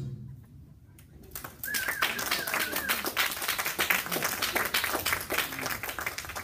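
Music stops; about a second later a small audience breaks into steady clapping. A brief wavering high call rises over the applause near its start.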